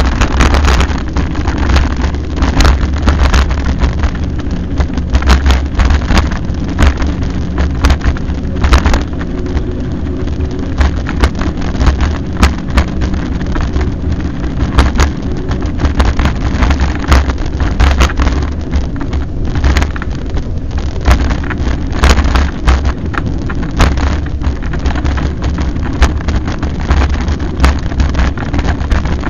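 Wind buffeting the camera microphone on a mountain bike riding a rutted dirt track, a heavy constant rumble, with frequent irregular sharp knocks and rattles as the bike and camera jolt over the bumps.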